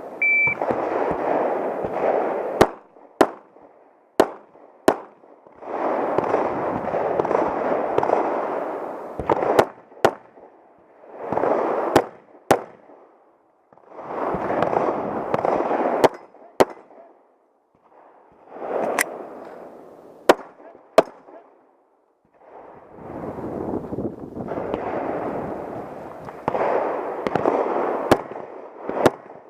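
Pistol shots fired in pairs and quick strings during a timed match stage, spaced a few seconds apart as the shooter moves between positions. Stretches of rushing noise a few seconds long fill the gaps between strings.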